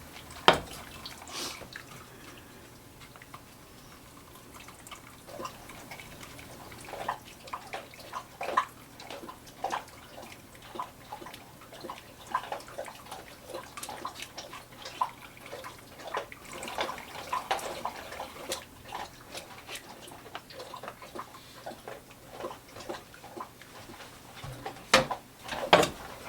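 Cooked, mashed strawberry blight being worked through a fine mesh strainer: juice trickling and dripping, with irregular soft scrapes and clicks throughout and a louder clatter near the end.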